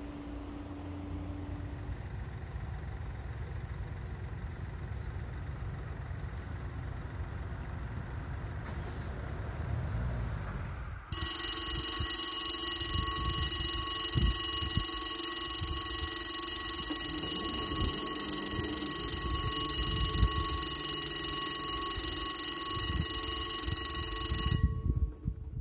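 Steady background rumble and hiss, then a level crossing warning bell starts ringing suddenly about eleven seconds in, a loud continuous electronic ring, and cuts off abruptly near the end. The ringing signals that a train is approaching the crossing.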